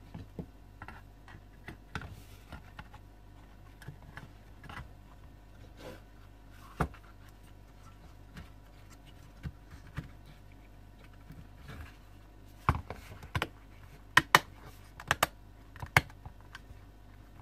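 Light plastic clicks and knocks as a circuit board is handled and pushed back into the yellow plastic housing of an AU Ford Falcon body control module, with a quick run of louder sharp clicks about three quarters of the way through.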